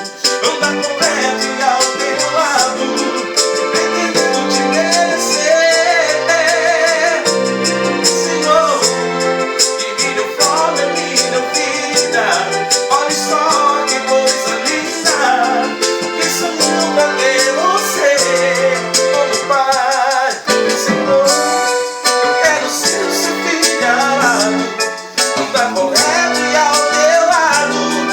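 Roland EM-15 arranger keyboard being played: a lead melody with vibrato over chords, bass and a steady drum-machine beat.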